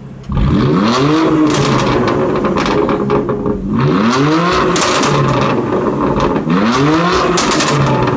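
BMW M4 Competition's 3.0-litre twin-turbo straight-six, through its M Performance exhaust, revved three times from idle, each rev rising and falling in pitch and followed by a run of crackles and pops on the overrun.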